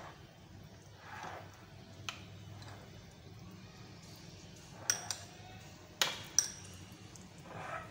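Metal spoon stirring yogurt and crushed fried onions in a glass bowl: soft wet scraping with about five sharp ringing clinks of the spoon against the glass, most of them in the second half.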